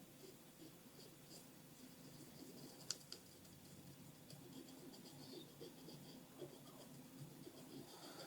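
Faint scratchy rubbing as a laptop's plastic speaker grille is wiped clean with a little alcohol, with one short sharp tick about three seconds in.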